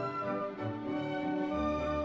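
Orchestral background music with sustained string notes and a low bass line that moves to a new note about one and a half seconds in.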